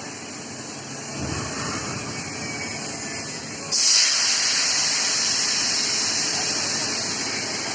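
Steam hissing from a steam boiler, a steady rushing hiss that suddenly gets much louder about halfway through and stays loud.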